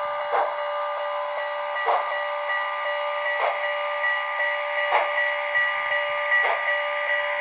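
HO scale model of steam locomotive CN 6060 with an ESU sound decoder playing slow steam exhaust chuffs, about one every second and a half, over a steady high-pitched tone.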